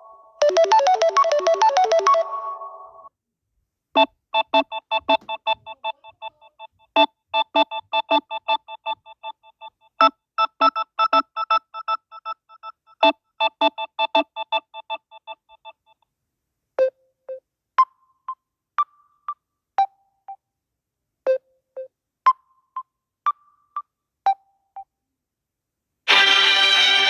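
Samsung Galaxy A30 ringtones playing one after another. A busy tune ends about 3 s in. After a brief silence comes a melody of short, quick keyboard-like notes in a repeating pattern for about twelve seconds. Then sparse single notes sound with pauses between them, and near the end a louder, fuller tune begins.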